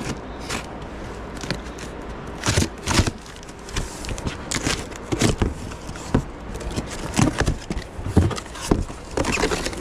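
Packing tape on a cardboard box being slit with scissors and the cardboard flaps handled: a run of irregular scrapes, rustles and taps.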